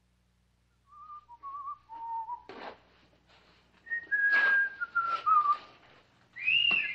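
A man whistling a slow tune in two phrases, each stepping downward in pitch, with a few short scraping noises between the notes.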